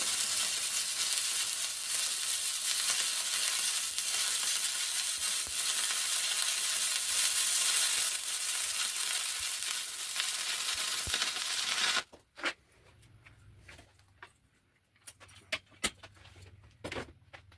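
Stick welder arc burning a stainless steel rod on a steel exhaust flange, running steadily, then cut off suddenly about twelve seconds in. A few scattered sharp ticks follow.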